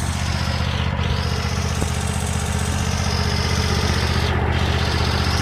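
Simplicity Prestige riding mower's 25 hp Kohler Command V-twin engine running at a steady speed.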